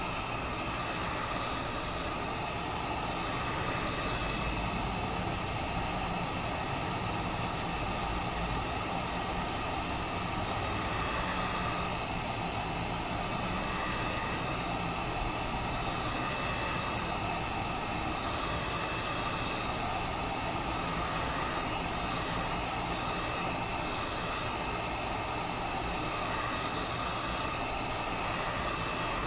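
Heat gun running steadily, a hiss of blown air with a few steady whining tones from its motor, as it heats the phone's glass to soften the adhesive beneath it.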